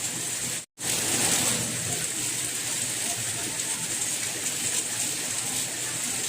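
Steady rain with an even hiss. It cuts out completely for a split second less than a second in, then carries on.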